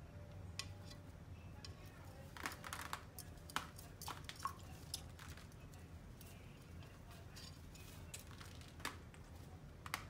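Quaker parrot bathing in its water dish: scattered small splashes and clinks against the dish, a cluster of them about two to five seconds in and a few more near the end, over a low steady hum.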